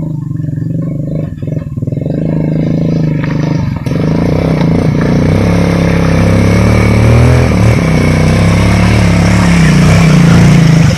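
Small engine running steadily and getting louder, its pitch shifting a little as it goes.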